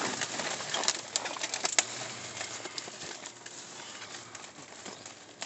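Rummaging through trash in a dumpster: a plastic dish drainer clattering and trash bags rustling, with a burst of sharp clicks and knocks in the first two seconds, then quieter rustling.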